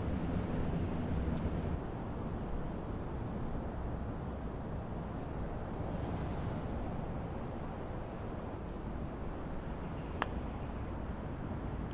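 A series of short, high chirps from a small animal repeat over a steady low background rumble, with one sharp click near the end.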